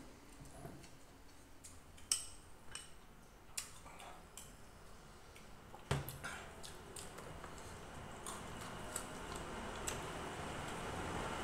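Scattered light clinks and taps of spoons and bowls against ceramic plates during a meal, a few sharp ones, the loudest about six seconds in.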